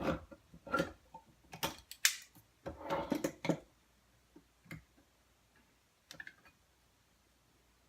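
Crockpot being set going: a string of sharp clicks and knocks as its lid and controls are handled, thinning out to a few faint clicks after about four seconds.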